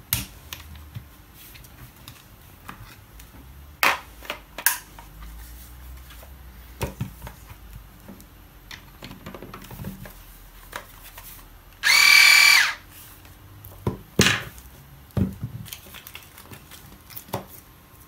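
Scattered clicks and knocks of small parts being handled, and about twelve seconds in a small electric motor whirring once, briefly and loudly, for under a second.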